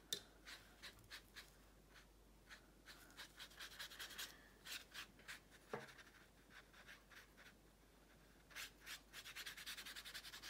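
Faint paintbrush strokes and dabs on watercolour paper: short quick strokes in bunches, with a quicker run near the end.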